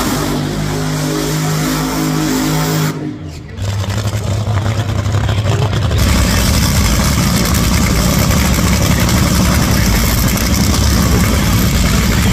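Top Fuel dragster's supercharged nitromethane V8 running at the start line, a steady pitched note at first. About three seconds in the sound breaks off briefly, then comes back louder and rougher and holds steady.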